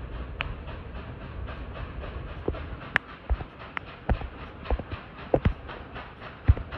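Nickel Plate Road 2-8-4 Berkshire steam locomotive No. 765 working, its stack exhaust beating in a fast even rhythm over a low rumble, with scattered sharp clicks.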